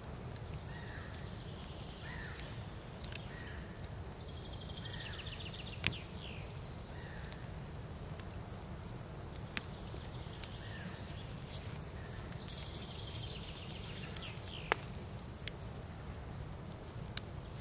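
Campfire of thick wooden logs burning, giving off sharp crackling pops now and then, the loudest about six seconds in. Birds call in the background with short chirps about once a second and a rapid trill twice, over a low steady rumble.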